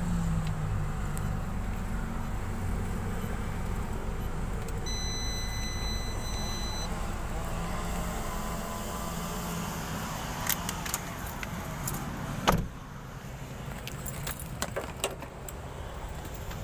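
Mitsubishi Montero engine idling with the check-engine light on, heard from inside the cabin. A steady electronic beep sounds for about two seconds about five seconds in. Near the end come scattered clicks and jingling and one loud knock, after which the engine is quieter.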